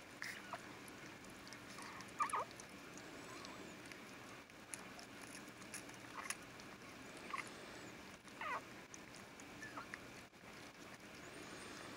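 Newborn puppies squeaking: short, high, mouse-like cries, about seven of them spread irregularly, some falling in pitch. Faint clicks and rustling run underneath.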